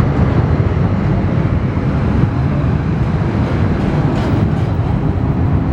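Boeing C-17A Globemaster III's four Pratt & Whitney F117 turbofans at takeoff thrust during the takeoff roll: a loud, steady, deep rumble.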